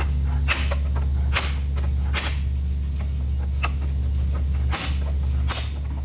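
About six sharp metal knocks, irregularly spaced about a second apart, each with a short ring, over a steady low hum. They come from work on a bent steel brace under the radiator support as it is pulled back out.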